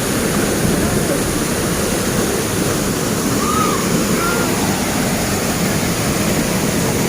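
Waterfall: a steady, loud, unbroken rush of falling water, heaviest in the low range. Two faint short chirps sound about halfway through.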